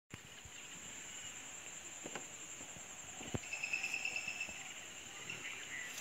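Rural outdoor ambience dominated by a steady, high-pitched insect drone, with a brief trilling chirp a little past the middle. A couple of sharp knocks, the louder one just over three seconds in.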